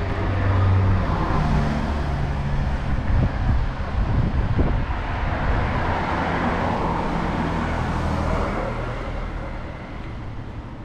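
Road traffic passing close by on a two-lane street: car engine hum and tyre noise swelling as vehicles go by, easing off near the end.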